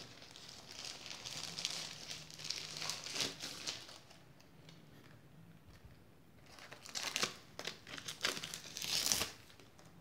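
Thin plastic film wrapped around a network switch crinkling as it is handled, in two spells: over the first four seconds, then again from about six and a half to nine seconds.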